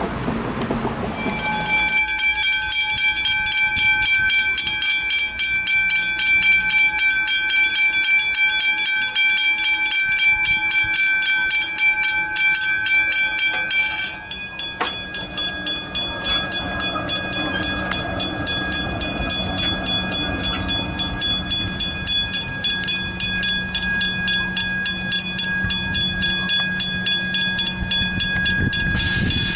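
Level-crossing warning bells ringing rapidly and continuously, a fast even ding with a bright metallic ring, signalling an approaching train. About 14 s in the bell tone changes, and a train rumbles past under the ringing in the second half.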